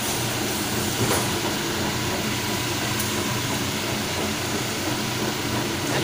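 Sicoma twin-shaft concrete mixer on a test run, its electric drive motors, V-belt pulleys and gearboxes running with a steady mechanical hum and hiss. Two faint clicks, about a second in and at three seconds.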